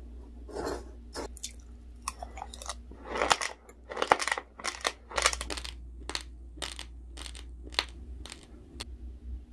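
Close-miked chewing of raw basmati rice grains mixed with honey: an irregular run of sharp, dry crunches as the hard grains are bitten and ground between the teeth.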